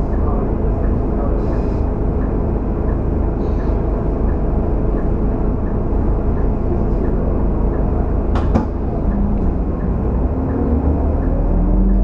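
Scania K310UD double-decker bus's diesel engine heard from inside the cabin: a steady idling rumble with a faint ticking about twice a second and one sharp click about eight seconds in. Near the end the engine note rises and grows louder as the bus pulls away.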